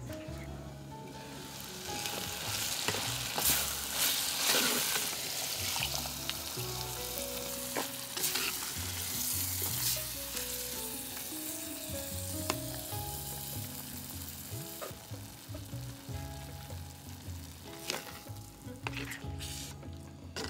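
Vegetables sizzling as they fry in a clay pot over a wood fire, stirred with a spoon that clicks and scrapes against the pot. The sizzle swells about two seconds in.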